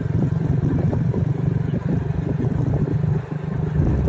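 Motorcycle engine running steadily while riding, heard from the passenger seat; the level dips briefly about three seconds in.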